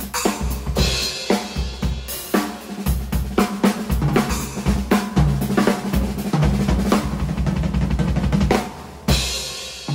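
A drum kit played with sticks: snare, bass drum, hi-hat and Sabian AA and Zildjian K cymbals, with many hits close together. Near the end comes one big crash hit that rings on and fades.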